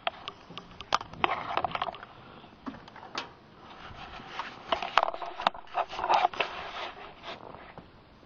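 Close handling noise: irregular crunching, scraping and clicking, louder in clusters and dying away near the end.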